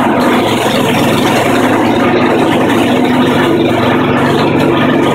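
Old Craftsman lawnmower's 3.5-horsepower engine running steadily at full revs, loaded by a belt-driven 12 V alternator charging batteries at about 24 amps.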